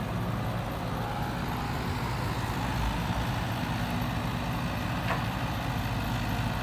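Diesel engines of a Caterpillar tracked excavator and a Hino six-wheel dump truck running steadily, a low even drone, while the excavator loads sand into the truck.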